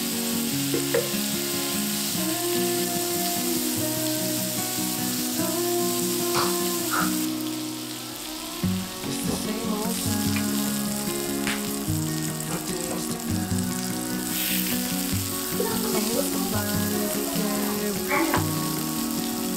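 Pork belly sizzling and frying on a cast-iron griddle, with metal tongs clicking and scraping now and then as the pieces are turned, over soft background music.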